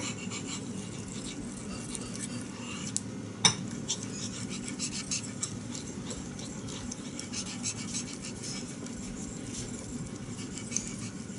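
CPM 3V steel knife blade stroked back and forth on a wet Naniwa Chosera 3000 grit water stone, a run of light, steady scraping strokes: the final polishing of the bevel and edge. Two sharper clicks of the blade on the stone come about three seconds in.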